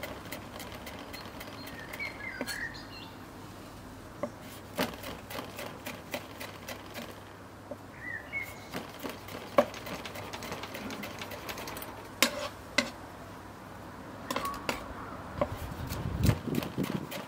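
Chef's knife dicing tomatoes on a wooden cutting board: irregular sharp knocks of the blade striking the board. A bird chirps briefly twice in the background.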